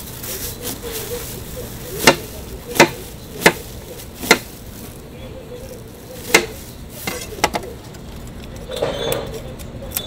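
A large kitchen knife cutting down through a peeled pineapple onto a plastic cutting board, each stroke a sharp knock. There are four strokes in steady succession, then one more and a quick double knock later.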